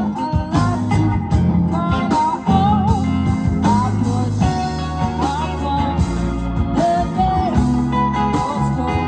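Live rock band playing: electric guitars, keyboard, bass guitar and drums, with a wavering melody line over a steady beat.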